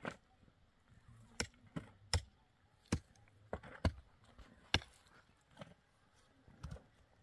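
Pickaxes striking stony earth as men dig, about ten sharp, irregularly spaced blows.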